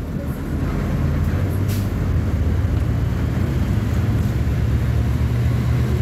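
Diesel engine of a Volkswagen 17.230 OD bus idling steadily, with a brief hiss about two seconds in.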